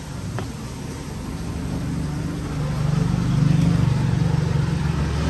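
A motor vehicle's engine running as it passes, growing louder to its peak about three and a half seconds in, then easing slightly.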